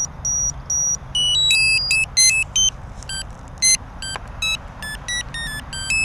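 Drone's electronic startup beeps after its battery is plugged in: three even high beeps, then quicker runs of short tones stepping up and down in pitch. A steady low rumble runs underneath.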